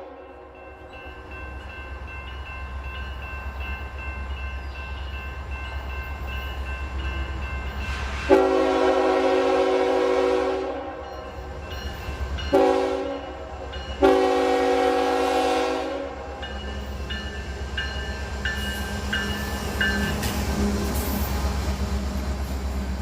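Diesel freight locomotive horn sounding a long blast, a short blast and another long blast, over the steady low rumble of the diesel engines as the train draws closer.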